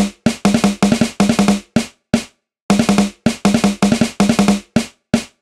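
A drum played in quick groups of loud strokes with a ringing tone. The pattern breaks off briefly about two and a half seconds in, then goes on in the same way.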